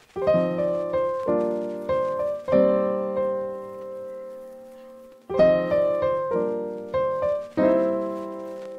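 Background piano music: a slow melody of struck notes that ring and decay, thinning out about four seconds in before a new phrase starts just after five seconds.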